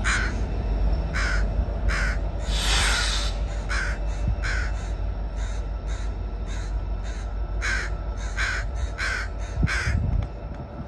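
Crows cawing over and over, a call every half second or so, with one longer call about three seconds in. Beneath them runs the low rumble of a freight train rolling away, which drops off near the end.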